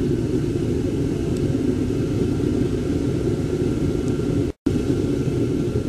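Blower-fed gas furnace for metal melting, burning steadily on a low setting, a constant low-pitched rumble of burner and blower. The sound drops out for a split second a little after four and a half seconds in, then carries on unchanged.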